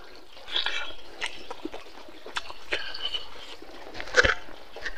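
Close-miked chewing and wet mouth noises as a man eats a handful of rice and pork, with scattered smacks and a sharper, louder click about four seconds in.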